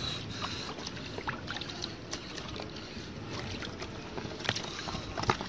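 Hands sloshing and groping in shallow, muddy paddy-field water, with many small splashes and drips.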